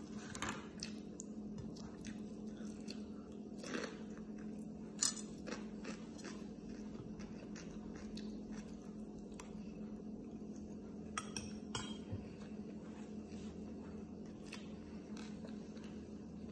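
Eating by hand: scattered light clicks and clinks of a plate and a plastic food container as food is picked up, with chewing, over a steady low hum.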